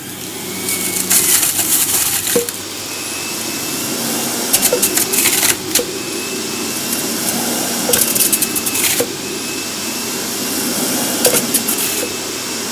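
HOUSNAT centrifugal juicer running steadily with a motor whine, as orange pieces are pushed down the chute onto the spinning cutter disc. About four louder, noisy bursts of grinding stand out each time the fruit is shredded.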